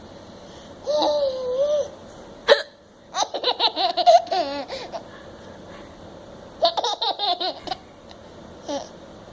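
An adult's sharp, short hiccup about two and a half seconds in, answered by a baby's laughter in quick bursts, with a second bout of laughing a few seconds later.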